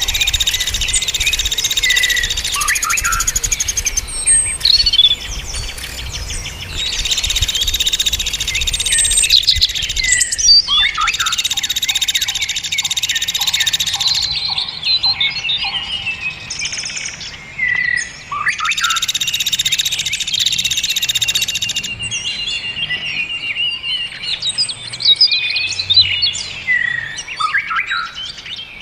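Dense chorus of songbirds chirping and whistling, with several long buzzing trills of a few seconds each recurring through it, as used in a masteran recording for training caged songbirds.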